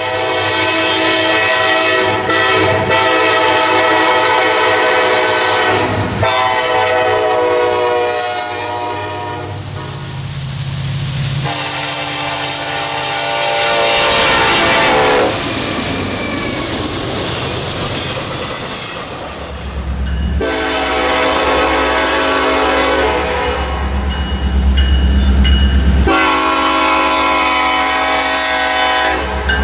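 Diesel freight locomotive's multi-chime air horn sounding a series of long blasts and one shorter one, typical of a grade-crossing signal. The horn's pitch slides down once as it goes by. A low locomotive engine rumble sits under the later blasts, with wheels clacking on the rails.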